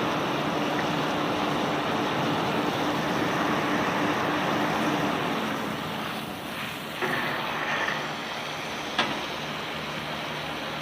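Steady rushing machinery noise of a rock-carrying conveyor belt running, with a faint steady hum in the first half. It dips slightly about six seconds in, with a short knock just after and a sharp click about nine seconds in.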